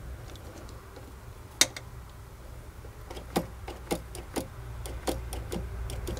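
Irregular sharp clicks and taps from a Peugeot 205 CTI throttle body as its butterfly is snapped shut by hand while the throttle stop screw is tightened with a screwdriver. The dull knock is the butterfly closing against the inside of its bore, a sign that the stop screw is not yet touching.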